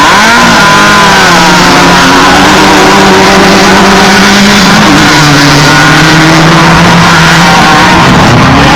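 Off-road race vehicle engines, trophy trucks or Class 1 buggies, running hard at high revs, very loud. The main engine note drops sharply about five seconds in, and another engine is rising near the end.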